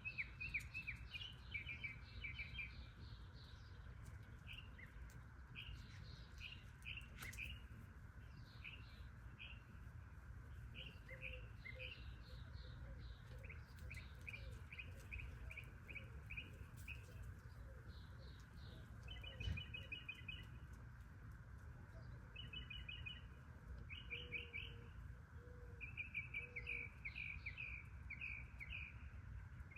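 Small bird chirping over and over in quick series of short, high notes, some run together into rapid trills, over a faint steady low rumble.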